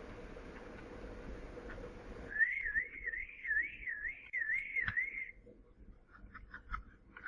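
A Furby toy giving a warbling whistle, its pitch wobbling up and down about three times a second for about three seconds, followed by a few short chirps. Before it, faint steady background noise cuts off suddenly about two seconds in.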